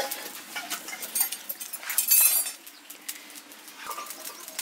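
Open wood fire crackling with scattered sharp clicks as a plucked whole chicken is singed in its flames. A brief, louder high-pitched sound comes about two seconds in.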